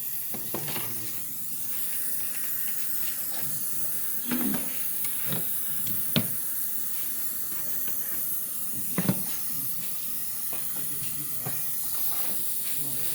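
Gas brazing torch flame hissing steadily as copper refrigeration pipe joints are brazed, with a few short knocks from tools or pipe.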